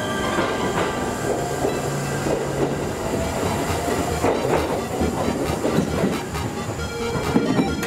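Train running on the rails: a steady rumble with irregular wheel-and-track rattle, and a faint whine that slowly rises in pitch in the first half.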